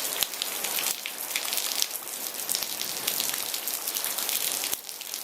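Steady rain falling, a constant hiss dense with the sharp taps of individual drops.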